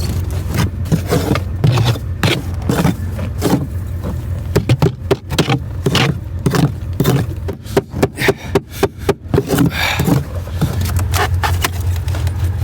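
Frozen camper door being broken free of ice: a run of sharp knocks and scrapes, quickest about halfway through. Beneath it runs the steady low drone of a 1996 Ford F350's 7.3 Powerstroke diesel idling.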